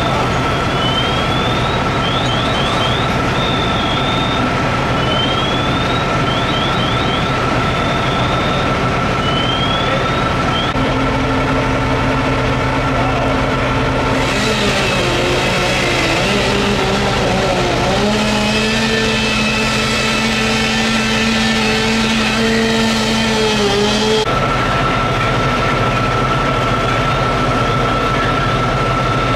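Fire engines running steadily with a constant high whine. From about 14 to 24 seconds in, an engine revs, rising and falling in pitch.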